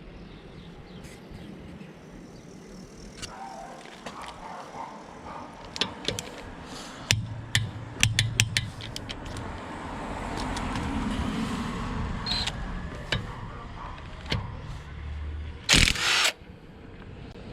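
Sharp metallic clicks and clinks of tools and sockets being handled over a low background, with one loud half-second burst about sixteen seconds in.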